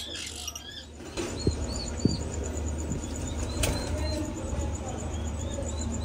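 Small cage birds chirping: short, arching high notes repeated about twice a second, over a steady low rumble.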